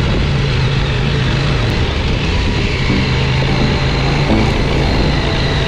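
KTM 790 Adventure's parallel-twin engine running at fairly even revs while riding a dirt forest trail, its low note steady with small dips, over constant tyre and wind noise.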